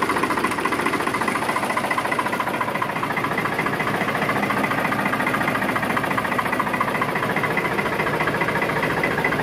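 Ford 4610 tractor's three-cylinder diesel engine running steadily at idle, an even rapid chugging with no change in speed.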